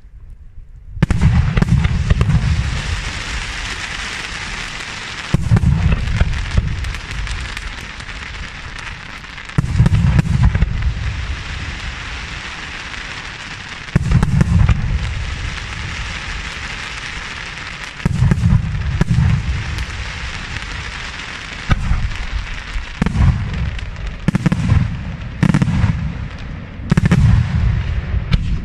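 Aerial firework shells bursting overhead: about ten deep booms, each followed by a long fading hiss. At first they come roughly every four seconds, then faster, about one a second, in the last seven seconds.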